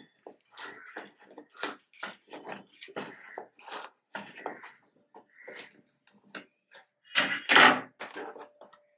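Scissors cutting through packing tape on a cardboard carton: a run of short, irregular scraping snips and cardboard scuffs, then a louder, longer rip as the tape parts and the flap is pulled open near the end.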